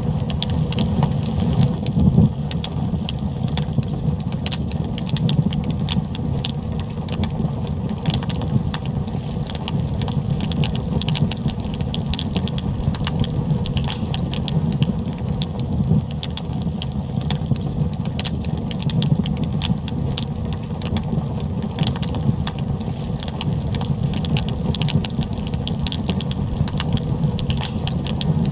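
Fire burning: many quick crackles and pops over a steady low rumble.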